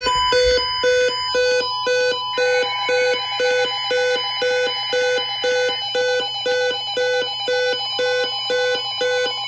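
Electronic emergency alert tones: a beep repeating about twice a second over steady high tones, with a buzzy warbling band that stops about a second in and returns until near six seconds.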